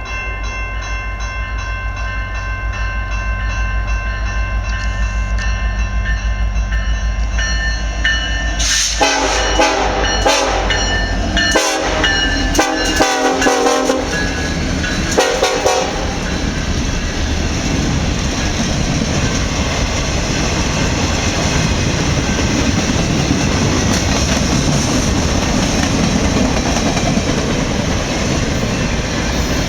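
Diesel locomotive horn on a BNSF SD70ACe sounding a long held chord, then about eight seconds in breaking into a run of short, rapid blasts in a playful horn show. The horn stops about sixteen seconds in and the freight train's cars roll past with steady wheel and rail noise.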